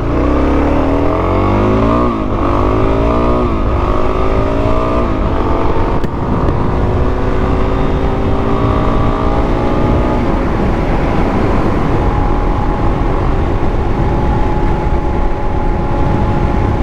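Dirt bike engine accelerating up through the gears: the pitch climbs and drops back at each of about four upshifts in the first five seconds. After that it runs at a steady cruising speed, with a small dip about ten seconds in, over steady wind rush.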